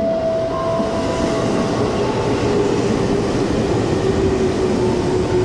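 Ex-JR 205 series electric commuter train running alongside the platform: a loud, steady rumble of wheels on rail with a steady whine that drops to a lower pitch about two seconds in.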